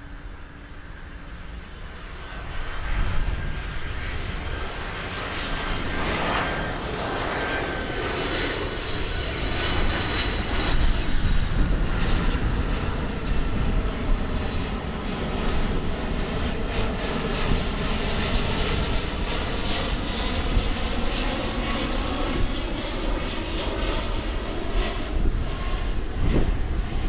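Jet airliner passing low overhead. The engine noise swells about two and a half seconds in and stays loud, with faint tones sliding slowly down in pitch as it goes by.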